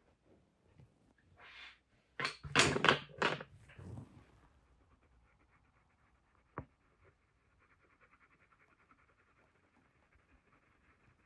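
Black Faber-Castell Polychromos coloured pencil scratching on paper in rapid short shading strokes. Between about two and four seconds in there is a cluster of several louder rushes of noise, and a single sharp click comes near the middle.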